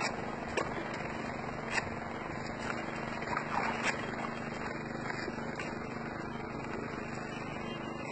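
Steady background noise with a constant low hum and a few scattered sharp clicks.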